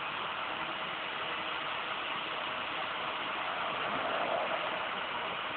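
Steady vehicle noise: an engine running under an even hiss, swelling slightly about four seconds in.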